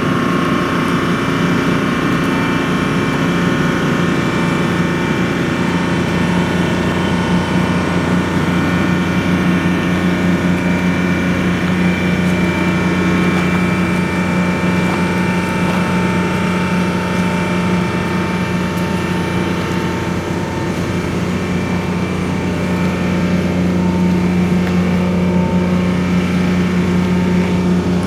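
Steady drone of a running diesel engine at a railway station, a few level tones held without change.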